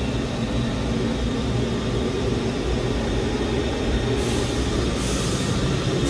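Steady low drone of running industrial machinery, with a rustling hiss coming and going in the last two seconds.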